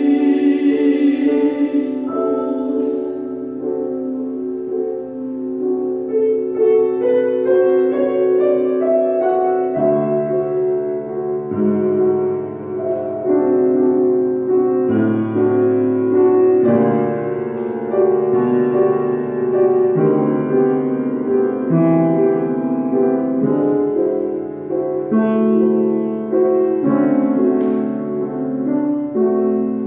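Piano accompaniment of a romantic Italian art song. A singer's held note with vibrato ends about two seconds in, and the piano then plays on alone in slow, sustained chords.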